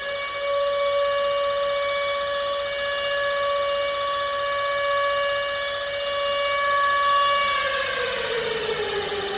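Civil defence siren sounding one steady, held tone, then winding down in pitch near the end.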